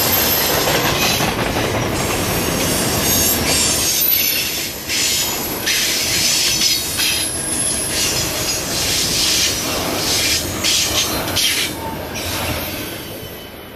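Double-stack intermodal well cars rolling past: steel wheels rumbling and clicking over the rail joints, with a thin high-pitched wheel squeal. The sound fades away near the end as the last car goes by.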